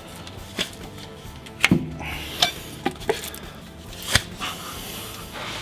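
Metal hand tools and parts clinking and knocking during work on the car's sway bar bushes, about six separate sharp clinks with the loudest about four seconds in.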